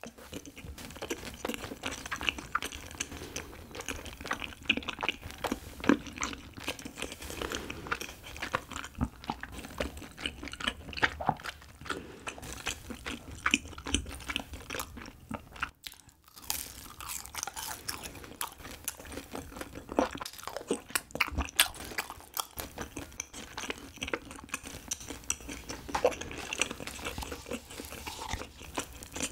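Close-miked eating sounds of Korean rice cakes (tteok) and sweets: repeated bites and chewing, with a brief pause about halfway through.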